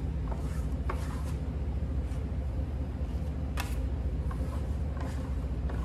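Steel plastering trowel scraping in long strokes over Venetian plaster, the tight finishing pass of the coat, with a few short sharp clicks of the trowel edge, the loudest about three and a half seconds in. A steady low hum runs underneath.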